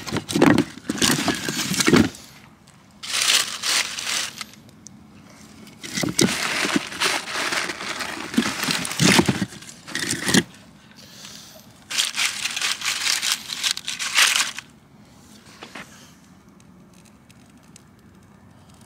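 Split firewood being taken out of a plastic tote and laid on a campfire: four bursts of crunching and rustling from dry leaves and a crinkling plastic bag, with a few sharp knocks of wood on wood.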